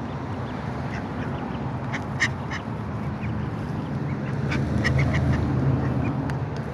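Ducks quacking in short, scattered calls, several close together around the middle, over a steady low rumble.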